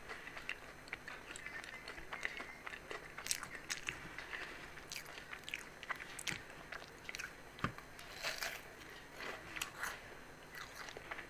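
Close-miked chewing of a fried aloo samosa, its crisp pastry crunching with many irregular crackling clicks.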